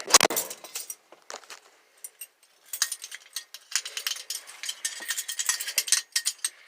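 A single sharp knock, then light metallic jingling and clinking in quick irregular runs, like a bunch of keys being handled.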